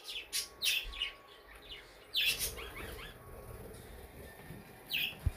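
A small bird chirping a few times in short, high, falling notes.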